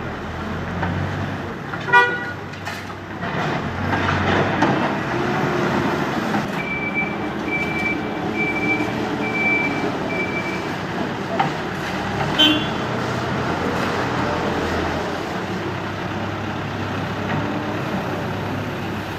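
A heavy work vehicle's engine running steadily, with a reversing alarm giving five short beeps in the middle. Two brief sharp ringing sounds stand out, one early and one past the middle.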